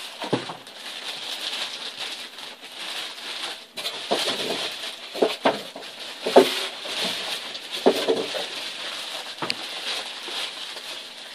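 Clear plastic wrap crinkling and rustling, with squeaks of polystyrene foam packing rubbing, as the packaging is pulled off by hand. The squeaks come as short, irregular squeals scattered through the rustle.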